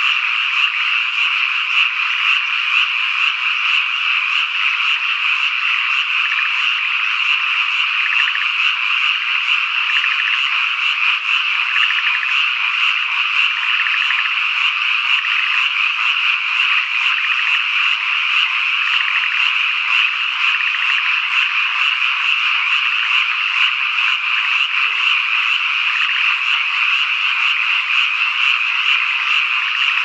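A dense chorus of many frogs calling at once, their croaks overlapping into a steady, unbroken din.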